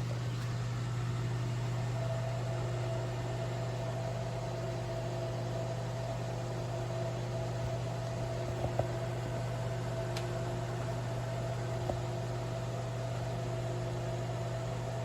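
Countertop air fryer oven running, its fan and heater giving a steady hum with a faint whine. A couple of faint clicks come about two-thirds of the way through.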